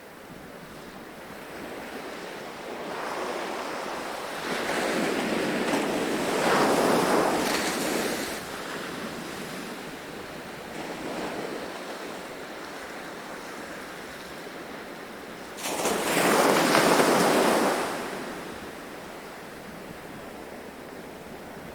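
Ocean waves breaking on a beach: the surf swells and fades in surges, with the two loudest waves about seven seconds in and, starting suddenly, about sixteen seconds in.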